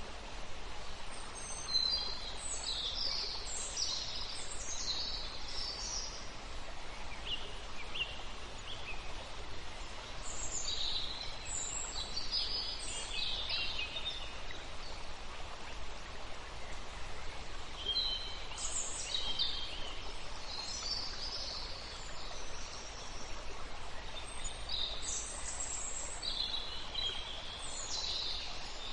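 Songbirds singing in short clusters of high chirps and trills, a new burst every several seconds, over a steady background hiss.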